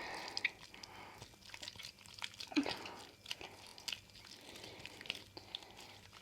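Sticky homemade slime of hand soap and flour being worked, giving small irregular clicks and wet crackles.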